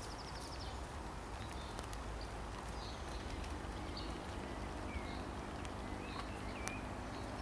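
Outdoor ambience: a steady low wind rumble on the microphone, with a few short, faint bird chirps in the second half.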